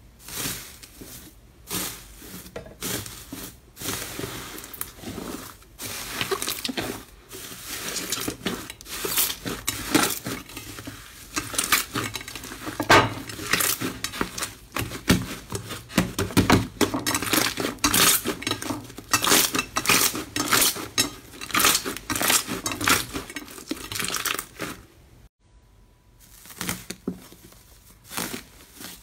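Inflated slime covered in metal foil leaf being pressed and squeezed by hand: a dense, irregular run of crackling, popping and foil crinkling. It stops briefly near the end and then picks up again.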